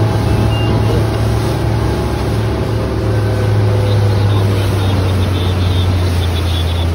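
Rigid inflatable boat under way with its engine running at a steady low drone, and water rushing and splashing along the hull.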